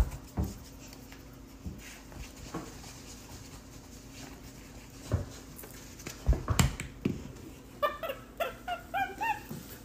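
Black-capped capuchin monkey giving a quick run of short, high chirping calls that glide up and down, about eight seconds in, after a few scattered knocks.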